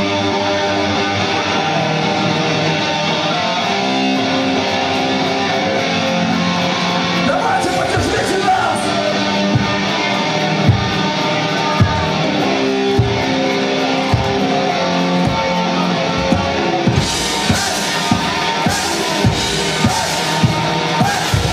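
Live metalcore band playing the opening of a song: guitar chords ring out, drum hits come in about eight seconds in, and cymbals join near the end with a steady beat.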